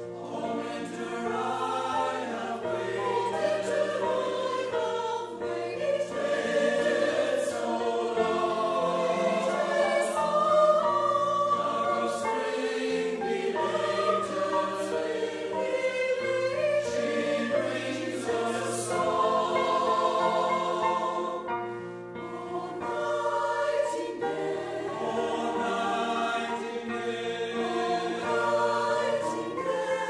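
A choir singing a slow secular choral piece in several parts, with piano accompaniment. The voices pause briefly for a breath between phrases about two-thirds of the way through, then carry on.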